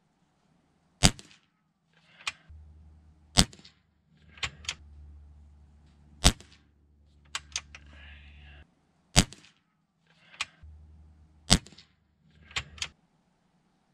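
Shrouded .22 Umarex Gauntlet PCP air rifle fired five times, one sharp shot every two to three seconds, with quieter clicks between the shots.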